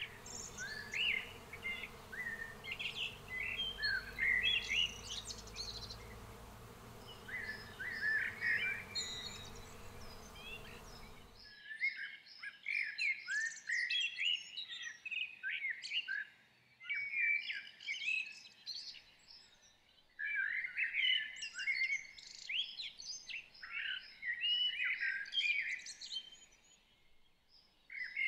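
Songbirds singing, a dense run of chirps and warbling phrases with short pauses. A steady background hiss and hum lies underneath for roughly the first third, then cuts off suddenly.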